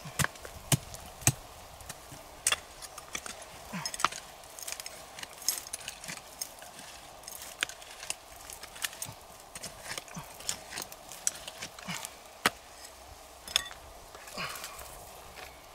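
Small hand pick striking and scraping rocky soil and stones as a hole is dug: irregular sharp knocks, a few close together at first, then sparser.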